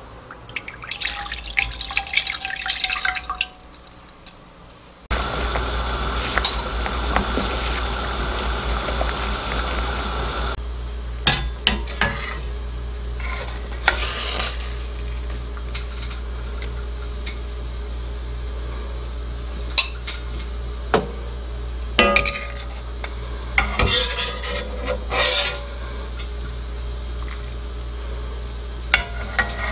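Water poured from a container into an empty stainless steel pot for about three seconds. After a short pause, a steady hiss of the stock boiling follows. From about ten seconds in, a metal ladle clinks and scrapes against the pot at irregular intervals as the dried anchovies and kelp are scooped out.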